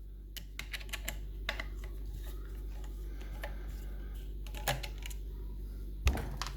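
Small metal parts of a lever mortice lock being handled: irregular light clicks and taps of levers and lock case, with a louder knock about two-thirds through and another near the end.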